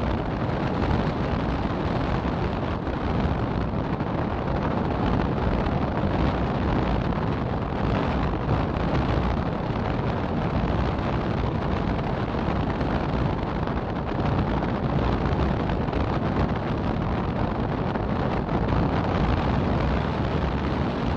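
Steady rush of wind over the microphone of a car-mounted camera moving at about 40 km/h, with the car's road noise underneath.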